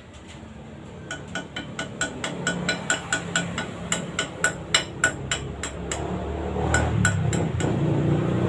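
Rapid metallic clicks of a hand tool working on metal under a car, about four a second for several seconds, with a bright ring to each. A low rumble builds near the end.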